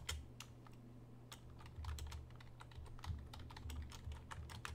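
Faint typing on a computer keyboard: irregular light clicks, over a low steady hum.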